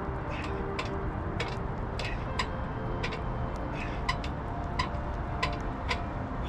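A jogger's running footfalls on wet ground, a short sharp click about two to three times a second in step with the stride, over a steady low rumble of wind and movement on the microphone.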